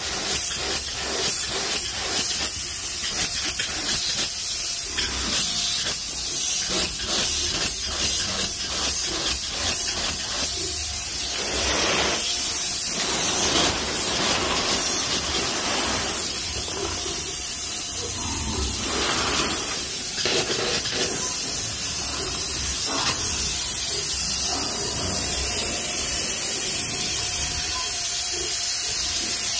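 Spray foam gun hissing steadily as it sprays rigid polyurethane foam, with a low rumble underneath.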